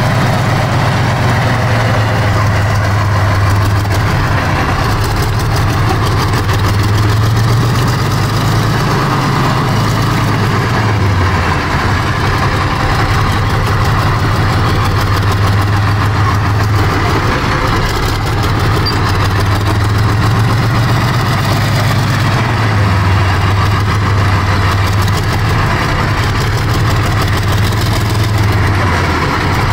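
The V-2 V12 diesel engine of a T-34-85 tank running at low revs, steady and deep. Its note rises and eases off again a couple of times.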